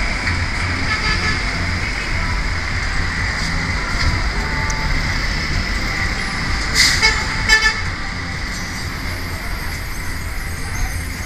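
Busy city road traffic: a steady rumble of passing buses, three-wheelers and motorcycles. A vehicle horn toots in a few short blasts about seven seconds in.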